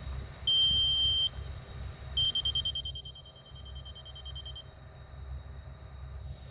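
Laser grade receiver beeping while grade is checked: a steady high tone for about a second, then a rapid run of beeps for about two and a half seconds. Underneath, the excavator's diesel engine idles with a low rumble.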